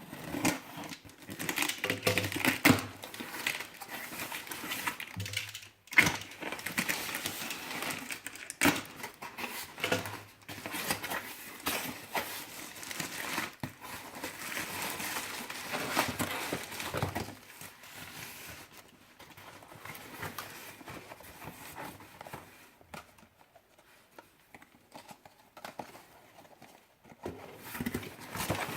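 Packaging being handled and opened: irregular crinkling and rustling with scattered clicks and knocks, busiest in the first half and dying down to a quieter patch before picking up again near the end.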